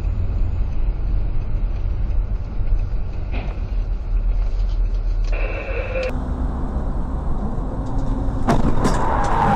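Steady low rumble of a car's engine and road noise, heard inside the cabin through a dashcam while driving in traffic. A brief high tone sounds about five seconds in, and the noise changes abruptly about six seconds in.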